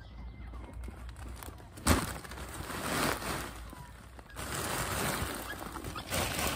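A clear plastic sack of hay or straw being loaded into a car: a sharp thud about two seconds in as it is set down, then stretches of plastic crinkling and rustling as the sack is shifted.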